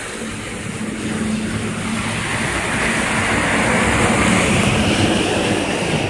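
A box truck driving past close by on a slush-covered road, its engine hum and tyre hiss building as it approaches and easing slightly as it goes by.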